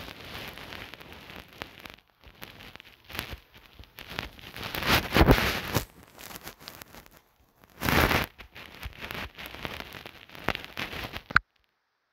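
Crackling, rustling handling noise on the phone's own microphone, with scattered clicks from fingers tapping and rubbing on the phone while drawing. It surges louder twice and cuts off abruptly near the end.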